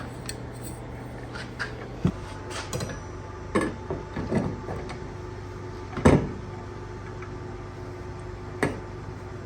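A few separate clicks and knocks of hardware being handled and fitted while a wall sconce is installed, the loudest a sharp knock about six seconds in, over a steady low hum.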